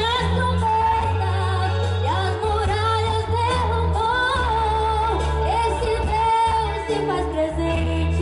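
A woman singing a Portuguese gospel song live into a microphone over instrumental accompaniment with deep held bass notes. Her voice glides and bends between sustained notes.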